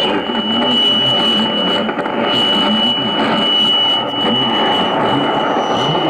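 Weak shortwave AM signal on 4865 kHz through a Tecsun S-2000 receiver: steady static hiss with a constant high whistle, the heterodyne from the neighbouring station on 4862 kHz, and faint broadcast audio buried beneath the noise.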